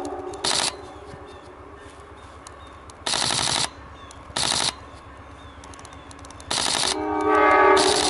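Sony A99 II shutter firing in high-speed continuous bursts: five short bursts of rapid clicks, the longest about half a second. An approaching train's horn sounds at the start, fading out, and comes back louder about seven seconds in.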